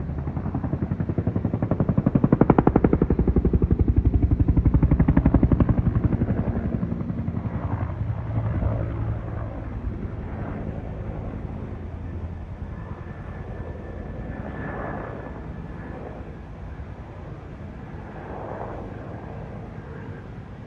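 Helicopter flying over, its rotor blades beating in a fast, even chop. The sound is loudest a few seconds in, then fades away as it moves off.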